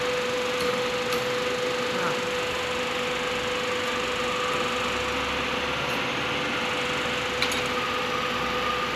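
C-profile roll forming machine running: a steady machine hum with one constant whine, and a few faint ticks.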